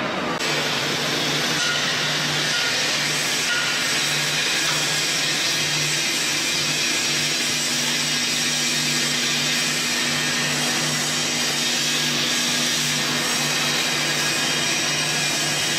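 Steady industrial machinery noise: a constant low hum with a broad hiss over it, starting about half a second in and holding level throughout.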